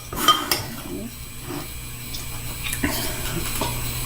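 Chopsticks clinking against a ceramic bowl of ramen while eating, a few sharp ringing clicks near the start and a couple more around three seconds in.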